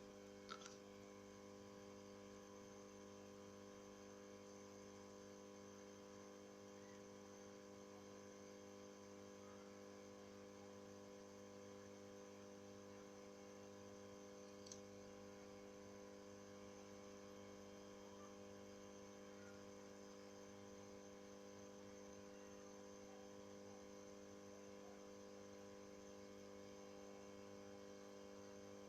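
Near silence with a steady low electrical hum, and a faint tick about half a second in and another about halfway through.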